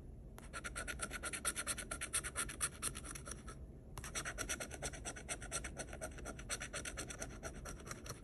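A metal scratcher scraping the coating off a scratch-off lottery ticket in rapid strokes, about six a second. The strokes pause briefly at the start and again about three and a half seconds in.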